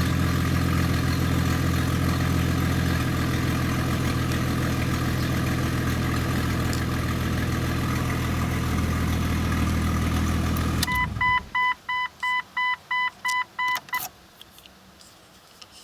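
1998 Jeep Cherokee XJ engine idling steadily with the rough exhaust note of a leak from a hole in the pipe just ahead of the catalytic converter; the engine is switched off about eleven seconds in. The vehicle's warning chime then beeps about eight times in quick succession.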